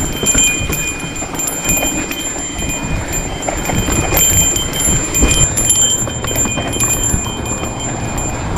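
Mountain bike rolling fast downhill over sandstone rock and dirt: frame, chain and components rattling with frequent knocks over bumps, over a low rumble of wind and tyre noise on the bike-mounted microphone.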